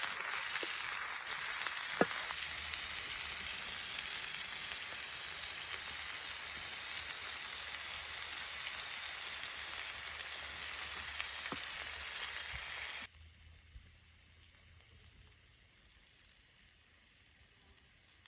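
Food sizzling as it fries in hot oil, a steady hiss with a few sharp pops. It cuts off suddenly about thirteen seconds in, leaving only faint outdoor background.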